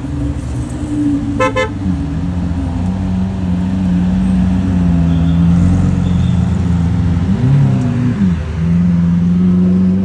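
Car engines running steadily, with two quick horn toots about a second and a half in and an engine revving up and back down near the end.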